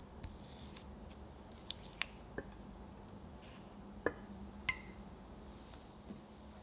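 Melted dark chocolate and butter being stirred in a bowl: quiet, sticky squishing with a few light clicks.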